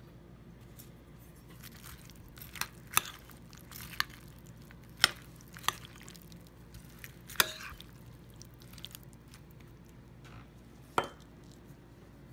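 A metal utensil moving through a salad of cut tomatoes, cucumber and onion in a glass bowl. It makes about seven sharp clinks and knocks against the glass, spread irregularly, with soft wet squishing of the vegetables in between.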